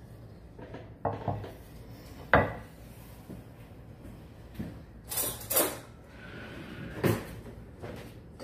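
Dishes being handled: a plate clinking and knocking as it is set down and moved on a wooden counter. There are about five separate knocks, and the sharpest comes about two and a half seconds in.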